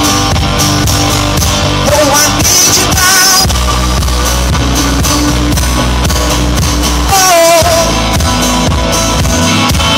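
Live rock band playing loud amplified music: electric guitars, bass and drum kit, with a wavering lead melody line over it about two seconds in and again near the three-quarter mark.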